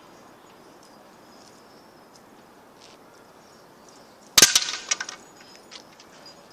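A loud, sharp crack about four seconds in, followed by a brief rattling clatter of smaller knocks that dies away within about a second.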